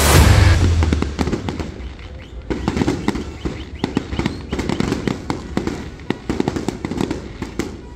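Fireworks: a loud low boom at the start, then many sharp cracks and pops over a rumble, thinning out near the end.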